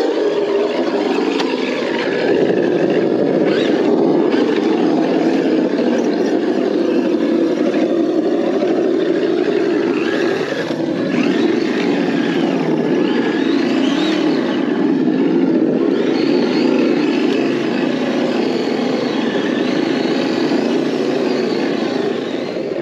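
Simulated engine rumble from the ESS-Dual sound module on a Traxxas TRX-4 Bronco RC crawler, played through its speakers. The pitch rises and falls as the throttle changes while the truck crawls.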